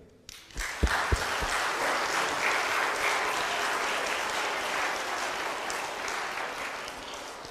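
A church congregation applauding. The clapping starts about half a second in, with a few low thumps near the start, holds steady, then fades toward the end.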